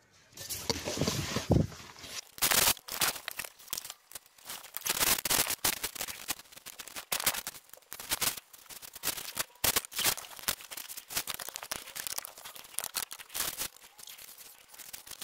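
Irregular clicking, scraping and rustling of hand and tool work as a BMW E60 diesel's glow plug control module is refitted and bolted back in place.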